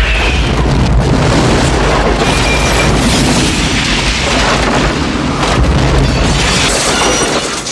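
Dense gunfire and explosions from a movie action sequence: rapid blasts over a heavy, continuous rumble, loud throughout.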